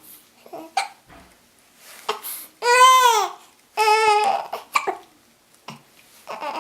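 A baby with the hiccups fussing: two loud, drawn-out whiny cries in the middle, the first rising then falling in pitch, with several short sharp sounds before and after them.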